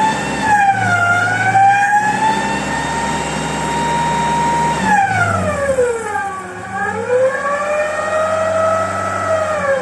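Chevrolet Opala's freshly rebuilt engine revved up and down, with a loud whine whose pitch rises and falls with engine speed, held steady for a couple of seconds in the middle and dipping low about six and a half seconds in. It is the strange noise the owner cannot diagnose.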